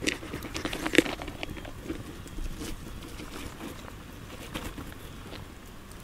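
Knife cutting and pulling at tough smoke-dried meat on a hanging rack: scattered small clicks, scrapes and tearing, with one sharper click about a second in.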